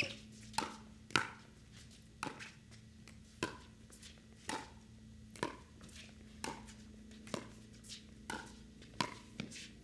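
Pickleball rally: paddles hitting the perforated plastic ball in sharp pops, about one a second, a dozen in all, coming a little quicker near the end.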